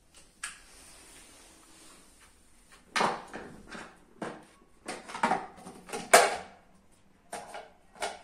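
A run of about ten sharp, irregular knocks and clatters, starting about three seconds in.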